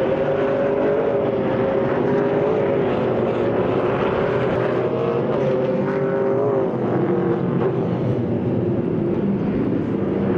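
Several race car engines running at high revs as a pack of cars goes around the circuit. The combined engine notes are loud and steady, and their pitch dips lower about two-thirds of the way through.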